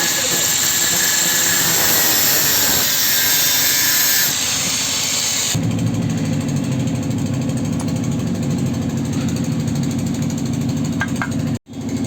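A loud, harsh hiss for about five seconds, then a sudden change to a tractor engine running steadily with an even, rhythmic low beat.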